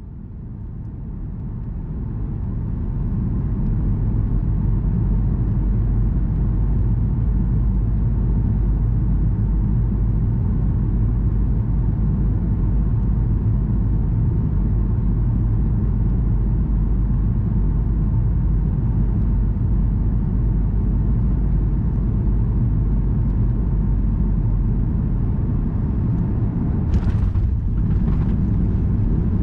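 Boeing 737-800 airliner cabin noise on approach: a steady low rumble that fades in over the first few seconds, with two short knocks near the end.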